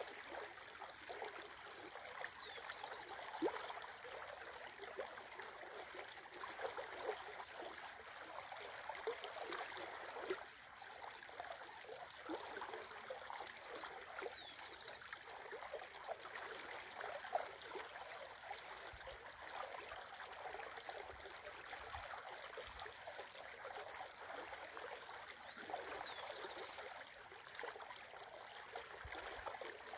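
Shallow river running over rocks and around a fallen log: a steady babble of water full of small gurgles and splashes.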